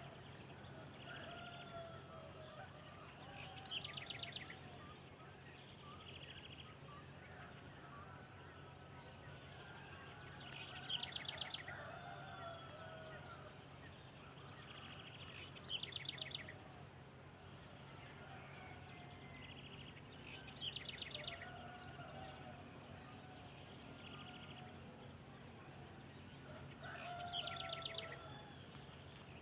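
Several wild birds singing. One repeats a rapid trill every few seconds, with short high chirps in a regular series and lower warbled notes between. A steady low hum runs underneath.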